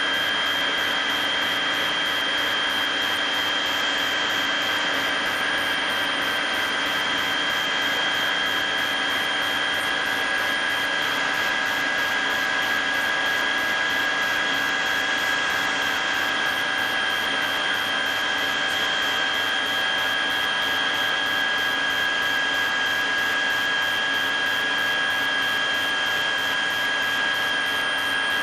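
Aircraft turbine engine running steadily, heard from inside the cabin: a constant high whine over a steady rushing drone.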